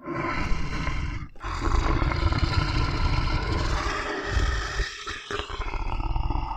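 Tiger roaring and growling in long, rough calls, with a brief break about a second in.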